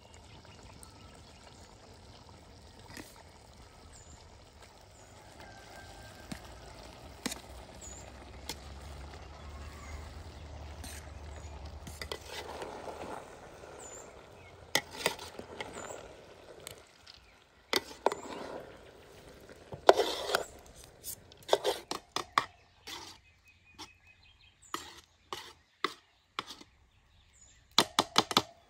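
Metal spoon and knife stirring cooked rice and chicken in a metal pot: a soft scraping rustle at first, then sharp clinks and scrapes of metal against the pot from about halfway on.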